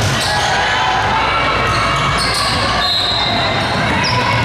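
A basketball being dribbled on a gym floor, with the steady murmur of many voices in the gym.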